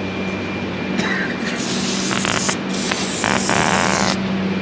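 About three bursts of spraying hiss, from about one second in until shortly before the end, over a steady low hum.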